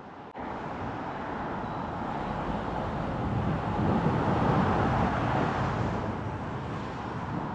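Road noise of a car driving through city traffic: a steady rush of tyres and engine that starts abruptly just after the beginning and swells for a moment around the middle.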